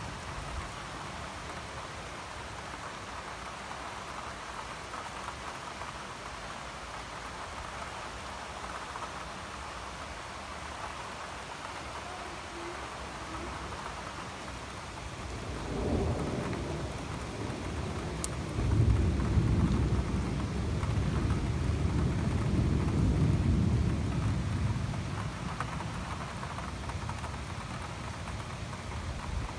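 Steady rain falling in a thunderstorm. About halfway through, a long rolling rumble of thunder builds, stays loudest for several seconds, and dies away near the end.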